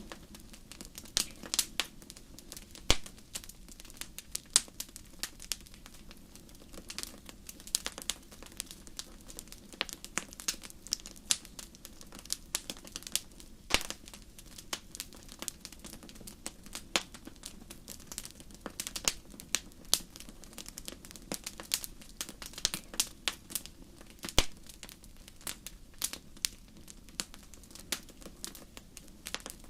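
Wood fire burning in a fireplace, crackling with irregular sharp pops and snaps, some much louder than others, over a faint steady low hum.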